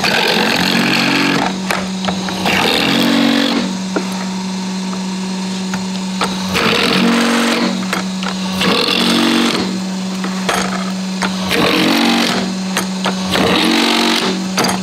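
Drill press motor running steadily while the bit is fed down through aluminum angle six times in a row, each cut a harsh grinding burst of about a second, as the indexing jig is stepped through its six hole positions.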